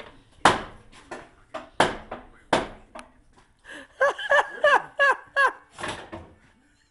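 A sledgehammer striking an exhaust pipe being forced onto a 1993 Geo Storm: three hard metal blows in the first few seconds, followed by a short burst of laughter.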